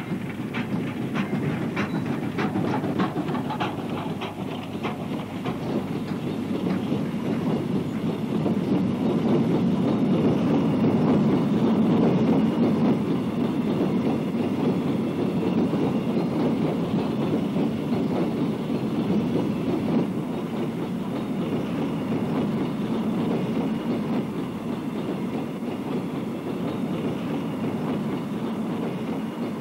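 A South Maitland Railways 10 class 2-8-2 steam tank engine working a coal train: regular sharp beats over the first few seconds fade away. Then the loaded coal hopper wagons roll past in a steady rumble, loudest about a third of the way through.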